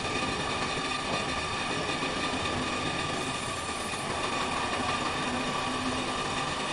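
Industrial fully automatic hemming sewing machine running steadily.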